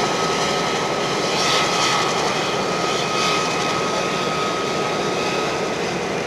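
Union Pacific 949 streamliner diesel locomotive running steadily, a dense engine noise with a thin steady high whine through it.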